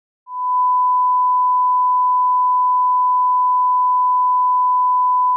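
Steady single-pitch test tone of a bars-and-tone leader: a 1 kHz line-up tone used to set audio levels, starting a moment in and holding at one constant level.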